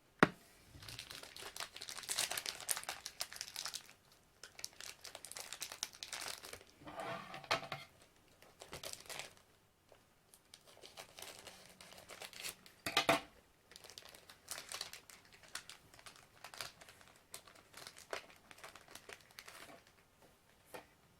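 Wrapper of a Panini Court Kings jumbo card pack being torn open and crinkled, in irregular bursts of rustling. There is a sharp click right at the start and a louder crackle about thirteen seconds in.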